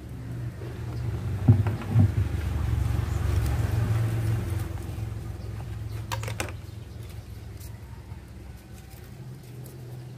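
A few light knocks and clicks from subwoofer parts (the speaker frame and voice coil) being picked up and set down on a wooden bench, over a steady low hum that swells into a louder rumble in the first half and then fades.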